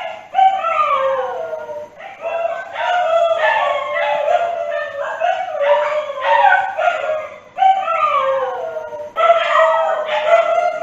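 Dog howling mournfully: a string of long howls, each about a second long and many sliding down in pitch, following one another with short breaks.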